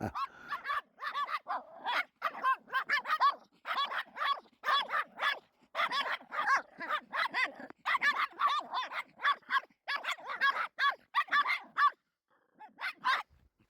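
Small dogs barking in rapid, repeated high yaps, which stop about twelve seconds in, followed by a few more barks near the end.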